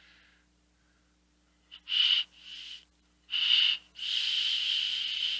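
Air hissing and whistling through an e-cigarette atomizer as it is drawn on: three short pulls about two to four seconds in, then a longer steady draw from about four seconds in.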